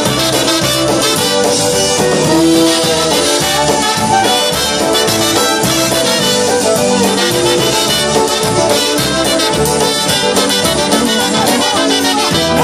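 Live polka band playing an instrumental break: two trumpets carrying the melody over fiddle and accordion, with a steady rhythm underneath.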